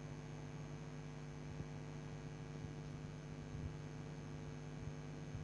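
Steady low electrical hum over faint hiss, with no other sound: the recording's background noise floor.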